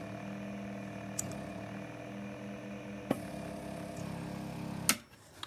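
Vacuum pump inside a vacuum beauty device running with a steady hum, with a couple of light clicks, then switched off with a click near the end. It is the pump noise that the seller calls normal.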